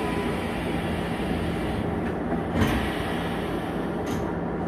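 Steady hum and rumble inside a Shizuoka Railway electric train, with one clunk a little past halfway through.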